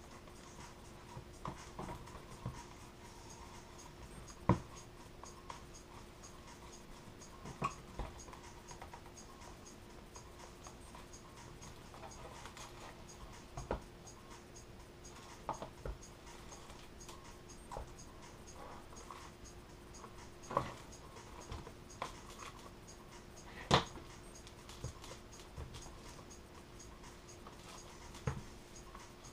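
Scattered light clicks, taps and scraping of hand-tool work on a foam RC model plane wing, with two sharper knocks, about four seconds in and near the end, over a steady faint hum.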